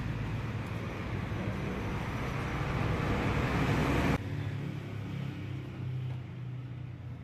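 Belarus MTZ-50 tractor's diesel engine running steadily. About four seconds in the sound drops suddenly and carries on quieter, with a steadier low hum.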